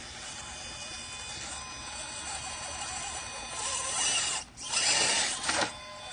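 Electric motor and gear drive of a scale RC crawler truck whining steadily as it drives over rocks. Two louder rushing bursts come about four and five seconds in.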